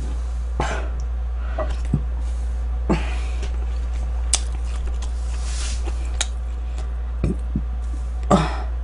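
A short burp near the end, over a steady low hum with a few faint clicks and knocks from eating.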